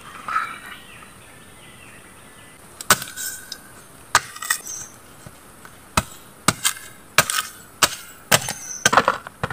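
Large knife chopping into a pineapple: about ten sharp chops, starting about three seconds in and coming faster toward the end.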